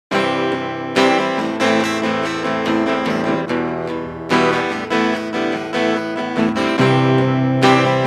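Music: a rock song's guitar intro, chords picked and strummed with a sharp attack about once a second, a deeper held note coming in near the end.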